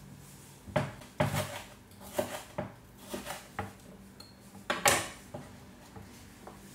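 Kitchen knife and dishes knocking and clinking in irregular strokes while salad vegetables are cut, the loudest clatter about five seconds in.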